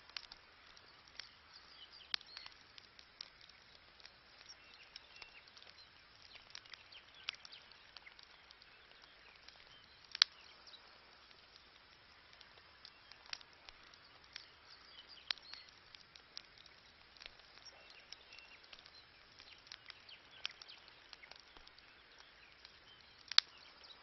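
Wood campfire crackling: irregular sharp pops and snaps over a soft hiss, with two louder pops about ten seconds in and near the end.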